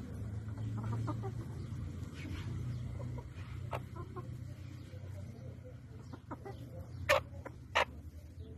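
White Silkie chickens calling: scattered short clucks and peeps, then two short loud calls about a second apart near the end, over a steady low hum.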